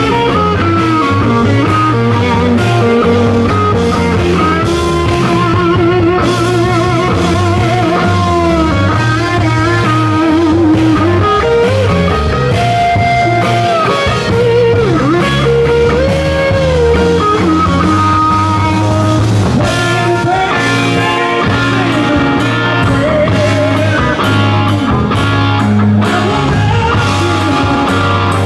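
Live blues-rock band: a Les Paul-style electric guitar through Marshall amps plays a slow solo of long bent notes with wide vibrato, over bass guitar and drums.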